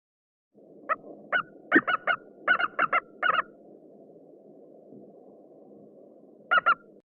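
A large bird calling in a rapid series of short, clipped notes, about ten in a couple of seconds, then a quick pair near the end, over a faint steady hiss.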